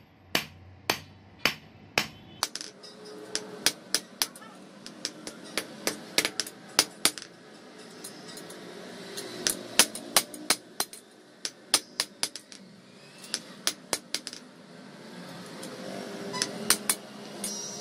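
Hand hammer striking a steel knife blade on an anvil: a run of sharp metallic blows, unevenly spaced at about two a second, some coming in quick clusters.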